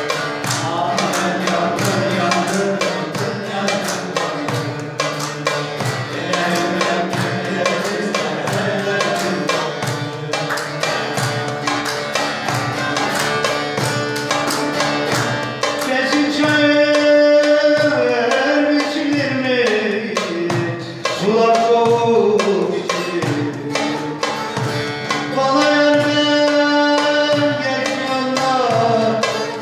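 Turkish folk music on a long-necked string instrument, played with fast, rhythmic strokes. A man's voice comes in singing about halfway through, in two long, wavering phrases over the instrument.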